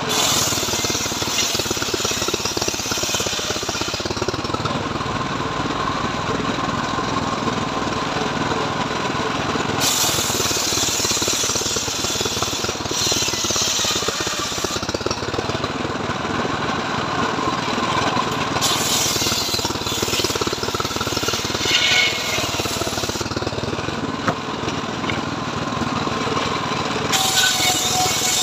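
Homemade circular sawbench running steadily while its blade rips a mahogany log lengthwise. The hiss of the cut rises over the machine's drone in several passes: at the start, about ten seconds in, around twenty seconds in, and near the end.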